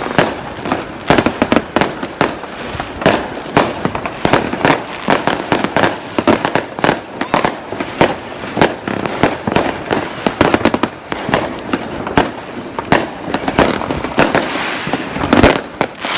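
New Year's Eve fireworks and firecrackers going off all around: a dense, irregular string of sharp bangs over continuous crackling.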